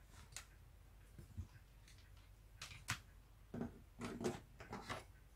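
Faint clicks and light knocks of small metal and plastic parts being handled on a metal surface, the sharpest click about three seconds in and a run of softer knocks near the end.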